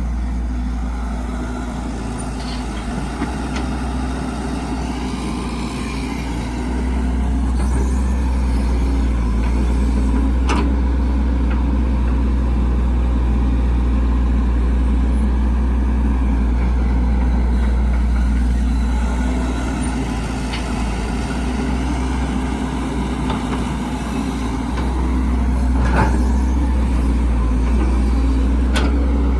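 Heavy diesel earthmoving machinery running with a steady low rumble that grows louder about seven seconds in and again near the end. A few sharp knocks stand out, one about ten seconds in and two near the end.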